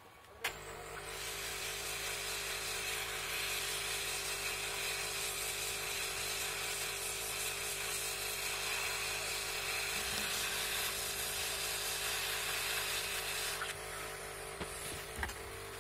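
Hot-air rework station blowing a steady hiss with a faint hum, starting with a click about half a second in and dropping away near the end, while it heats the solder to fit a replacement MOSFET on the motherboard.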